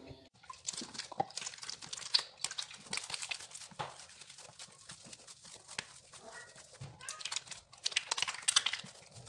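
Bare, wet hands kneading a stiff whole-wheat bread dough against a marble countertop: irregular sticky slaps and squelches, busiest near the end. Water is being worked in because the dough is still rough and dry.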